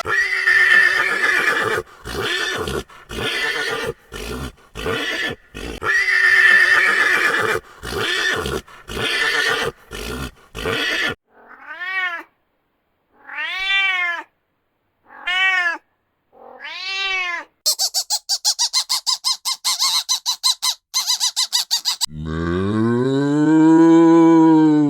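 A run of different animal calls one after another. First come about eleven seconds of rough, noisy calls in bursts, then four short calls that rise and fall in pitch, then a fast high rattle of about ten pulses a second. Near the end a cow starts a long, low moo.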